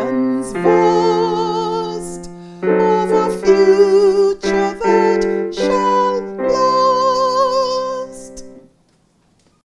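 A woman singing the closing phrases of a university anthem solo, with vibrato on long held notes, over instrumental accompaniment. The song ends on a long final note about eight and a half seconds in.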